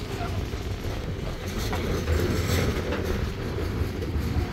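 Bulk freight train's cars rolling past on the rails: a steady low rumble of wheels on track.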